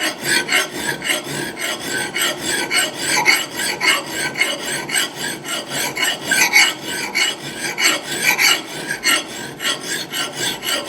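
Heller Nucut single-cut flat lathe file drawn in quick, even strokes across the steel edge of an axe head, about three strokes a second. The file is biting well and cutting smoothly.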